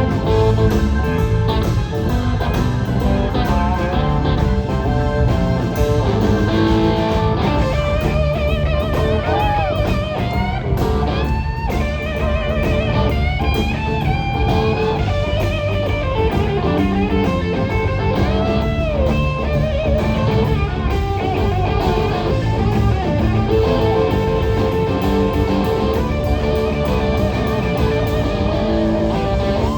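Live blues-rock band playing with an electric lead guitar line on top, its notes bending up and down over the steady backing of the band.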